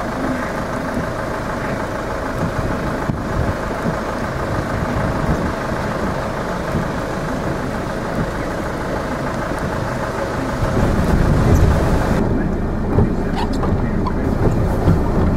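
Steady rushing noise of heavy rain and fast-flowing floodwater heard from inside a vehicle, with a louder low rumble near the end.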